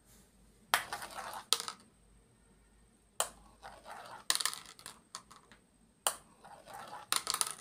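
Marbles dropped one at a time onto a plastic spiral slide, each hitting with a sharp click, rattling down the track and clattering into a woven plastic basket, three times over.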